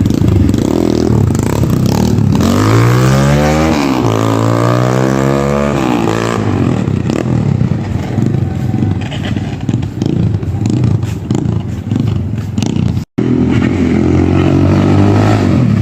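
Kayo T2 dirt bike engine running, revved up and back down a few seconds in, then running on with irregular clattering and ticking.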